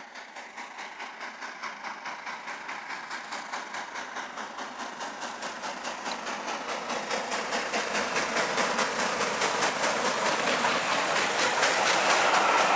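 Three-cylinder LNER K4 steam locomotive 61994 The Great Marquess working hard uphill, its rapid, even exhaust beats growing steadily louder as it approaches.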